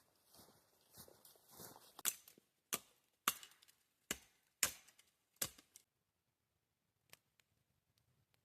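Six sharp chopping strikes, like wood being chopped for a campfire, coming irregularly about half a second apart, preceded by soft rustling and followed by a few faint clicks.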